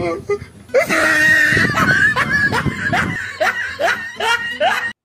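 A burst of high-pitched laughter: a quick run of short, rising 'ha' sounds, about three a second, that cuts off abruptly near the end.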